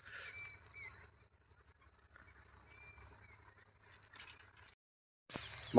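Faint field ambience: a steady high-pitched insect drone with a few faint bird chirps. The sound cuts out completely for about half a second near the end.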